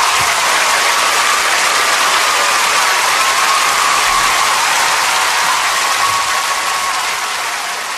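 Large concert audience applauding and cheering, fading near the end.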